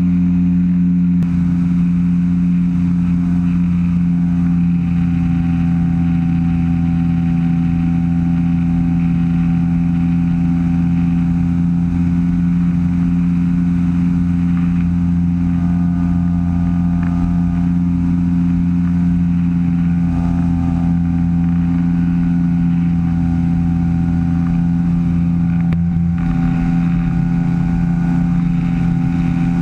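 Engine and pusher propeller of a weight-shift microlight trike running steadily in flight, a constant loud drone with a strong low hum.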